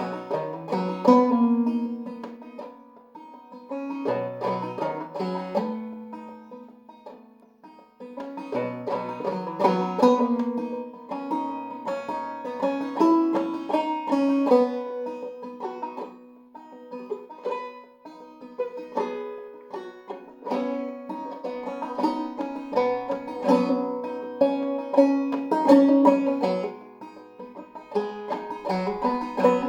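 Five-string banjo played clawhammer style in eCGCD tuning: a quick run of plucked notes over a ringing drone string, with brief lulls between phrases.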